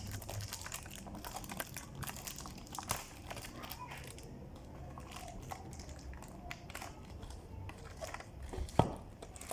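Perfume packaging being handled and opened: scattered crinkles, rustles and small taps of cardboard and paper, with one sharp knock near the end.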